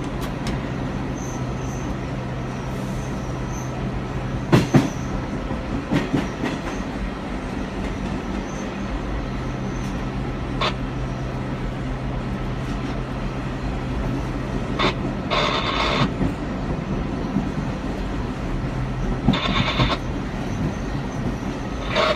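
Vintage NYC Subway R38 and R40 Slant train running at about 21 mph, heard from inside the operator's cab: a steady low hum with sharp knocks of the wheels over rail joints every few seconds. Two short harsher rushing noises come about two-thirds of the way through and near the end.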